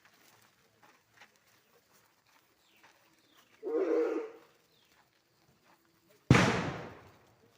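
A short loud call about three and a half seconds in, then a sudden loud bang about six seconds in that dies away over about a second.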